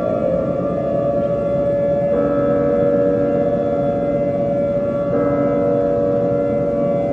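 Civil defense siren sounding the attack warning: a loud, steady blare of several held tones, shifting slightly in pitch about every three seconds.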